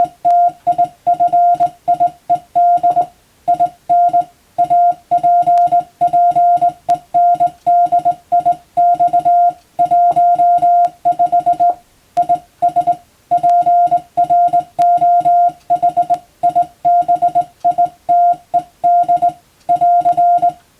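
Morse code (CW) tone, a single steady beep keyed on and off in dots and dashes at a steady sending pace, with short pauses between letters and words.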